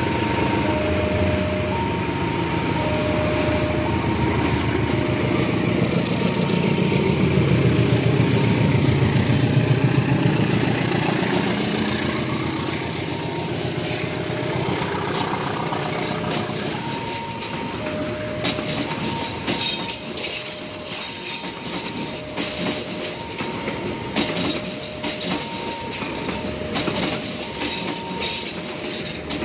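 A diesel-hauled passenger train passing a level crossing while the crossing's warning alarm keeps sounding an alternating two-tone chime. The locomotive's engine swells as it goes by, then the coaches' wheels clack over the rail joints through the second half.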